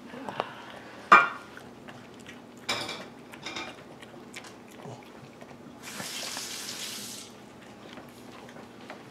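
Dishes and cutlery clinking in a kitchen: one sharp ringing clink about a second in, then lighter clattering a couple of seconds later. A short hiss follows a little after six seconds.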